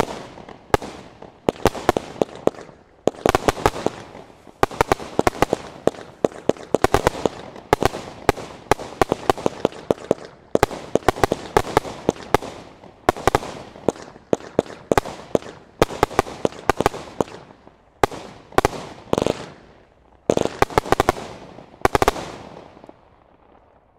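Standard Fireworks Witchcraft single-ignition barrage cake firing shot after shot: rapid sharp bangs and pops of tubes launching and shells bursting, in quick clusters. It ends in a last dense volley near the end, then dies away.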